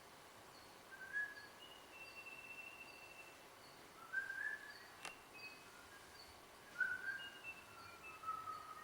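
Faint, high, bird-like whistled notes: short upward slides and a few longer held tones, scattered irregularly. Under them a soft high tick repeats steadily, and there is a single sharp click about five seconds in.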